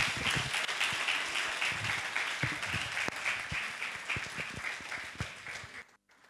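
Audience applauding, thinning out and then cutting off abruptly near the end.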